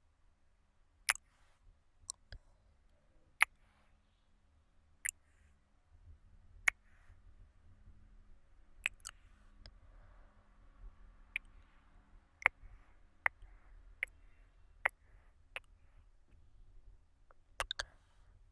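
Close-miked ASMR mouth sounds: about fifteen sharp, short mouth clicks and pops at irregular intervals, the last few coming in a quick cluster near the end. Soft breathing runs faintly underneath from about six seconds in.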